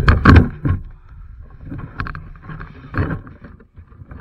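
Motorcycle crash onto loose slate rocks: heavy crashing impacts and clatter in the first second, then a few separate knocks and scrapes as things come to rest.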